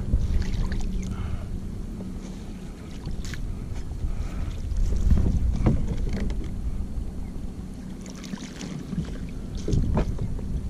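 Wind on the microphone and water against a kayak's hull, with a few scattered knocks.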